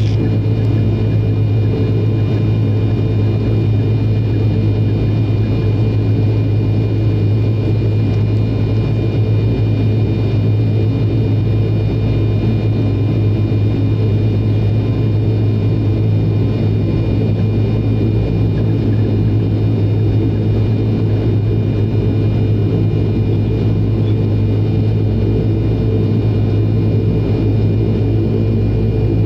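ATR 42-300's Pratt & Whitney Canada PW120 turboprop engine and propeller running at taxi power, heard inside the cabin beside the engine. It is a steady drone, a strong low hum with a few even higher tones above it.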